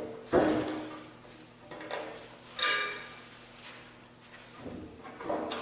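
Steel parts clanking and knocking against each other as they are handled, in a few separate metallic knocks with short ringing, the loudest about two and a half seconds in.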